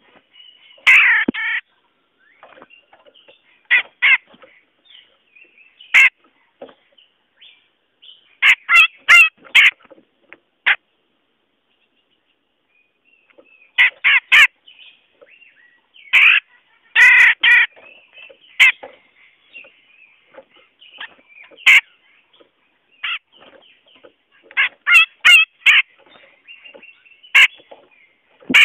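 Cucak jenggot bulbul calling: loud, harsh chattering notes in short clusters, some in quick runs of three or four, with a pause of a couple of seconds a little before the middle. It is a bird-trapping lure call, used to draw wild cucak jenggot down.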